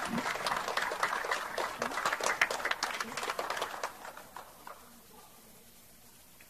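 Audience applauding with many separate claps, dying away about four to five seconds in.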